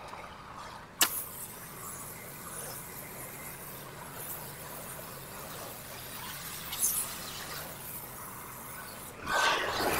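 Pressure-washer spray wand hissing steadily as it applies soft-wash chemical at low pressure. A sharp click sounds about a second in, and a louder rush of noise comes near the end.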